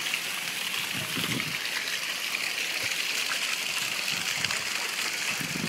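Steady sound of running water gushing and splashing over a paved water feature.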